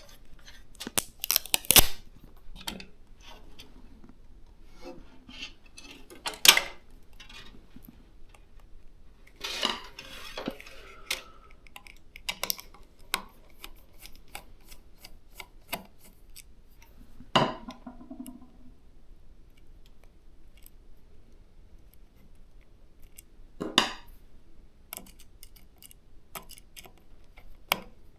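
Computer hardware being handled and fitted: scattered light clicks and taps of small hard parts, with four louder knocks and a brief scraping rustle near the middle.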